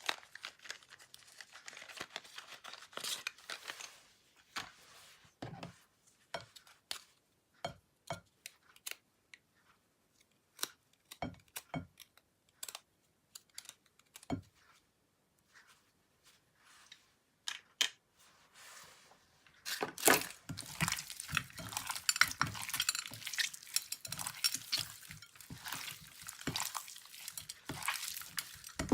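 Slime being worked by hand, giving scattered sticky pops and clicks, then turning to a dense, steady crackling about two-thirds of the way through.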